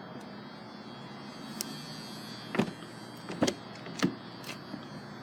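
A few sharp clicks and light knocks, spaced unevenly about half a second to a second apart, over a steady faint hum.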